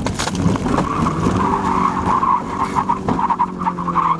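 Opel Omega saloon being drifted: the engine runs under load while the tyres squeal from about a second in, and the engine note falls near the end.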